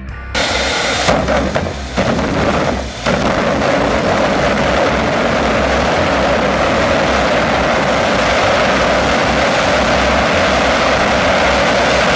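Twin jet engines mounted on the back of a Mini running under power, a loud continuous roar. It starts suddenly just after the opening, wavers for the first few seconds, then holds steady.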